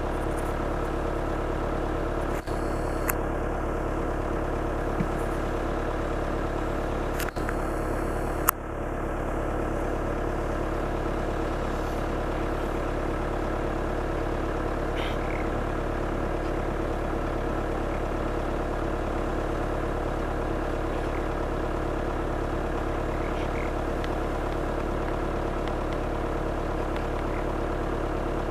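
Steady drone of an idling vehicle engine, with a few sharp clicks in the first several seconds.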